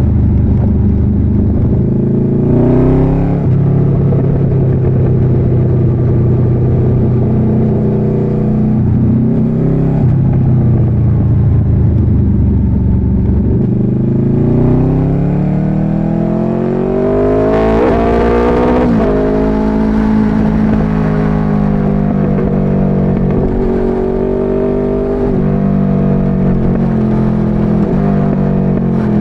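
Motorcycle engine pulling through the gears: the pitch climbs and drops at gear changes, rises in one long pull and drops sharply at a shift, then holds at a steady cruise with small rises and dips of the throttle.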